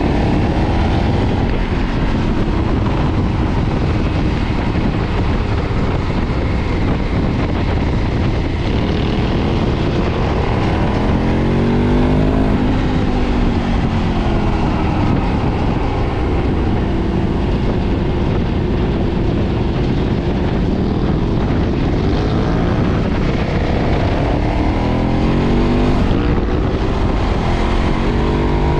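KTM 990's stock-exhaust V-twin under way, the revs climbing in sweeps through the gears twice and dropping back between, over a steady rush of wind and road noise.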